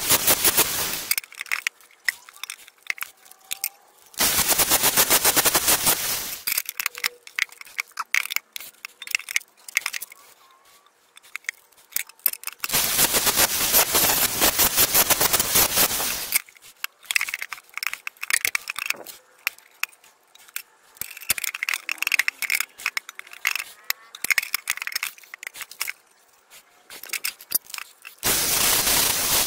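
Angle grinder with a flap disc grinding the edges of an aluminium plate and sump, in four loud, hissing bursts of one to three and a half seconds each. Quieter scraping and ticking comes in between.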